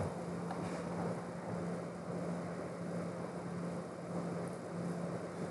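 Steady background hiss with a faint, even low hum: room tone.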